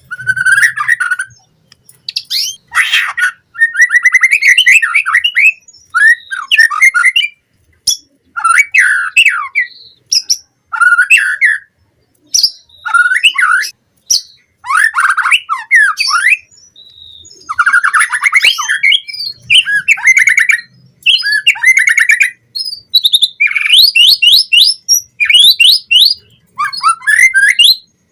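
White-rumped shama (murai batu) singing continuously in varied phrases of whistles, fast trills and harsher notes, with short pauses between phrases.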